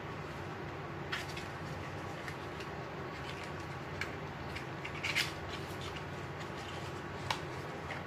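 Steady electric fan noise, with a few light taps and rustles from small cardboard ink boxes being handled, the loudest cluster about five seconds in.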